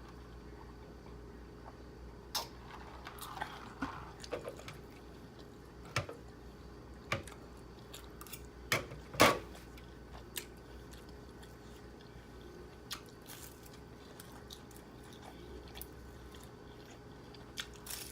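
Close-up eating sounds: a person chewing and biting pork lumpia, with scattered sharp clicks and taps, the loudest about nine seconds in.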